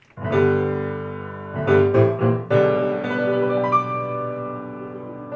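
Grand piano played alone: a chord struck just after the start and left to ring, then a few more chords about two seconds in, held and slowly dying away.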